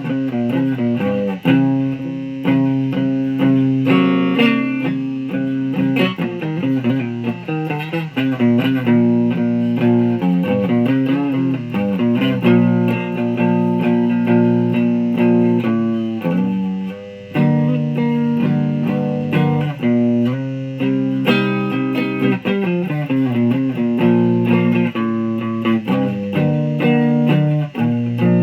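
Electric guitar played continuously, a string of sustained notes and chord changes with a brief drop in level about two-thirds of the way through.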